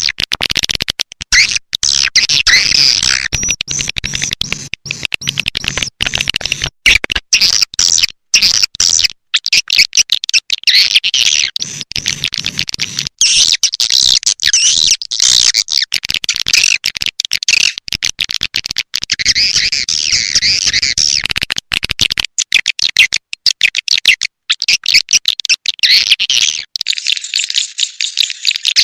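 Recorded call of edible-nest swiftlets, played as a lure to draw the birds into a swiftlet house. It is a dense, rapid, high-pitched twittering of chirps, choppy with many brief breaks.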